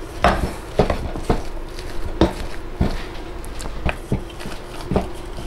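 Boiled potatoes being mashed with a wooden utensil in a stainless steel pot: irregular knocks of wood against the pot, about two a second, with the soft mash in between.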